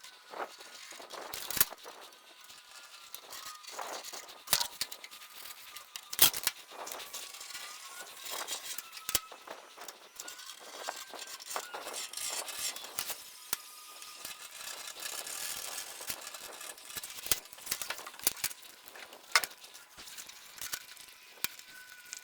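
Irregular clicks, taps and scratches of hand-marking a cut line on a steel deck with a correction pen and permanent marker. A faint wavering tone sits in the background.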